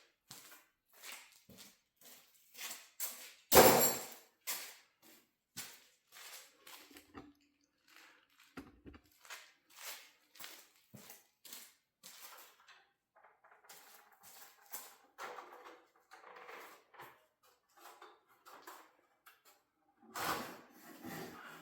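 Scattered clicks and knocks of garage door hardware and tools being handled, with one loud clank about three and a half seconds in.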